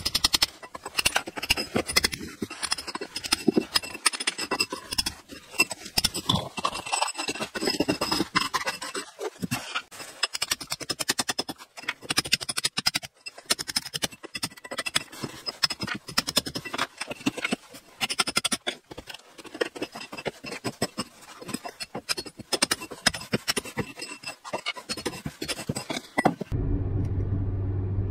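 A hand tool scraping and scratching at the plaster edge of a door frame, in quick irregular strokes with clicks. About a second and a half before the end it gives way to a steady low hum of road noise inside a moving car.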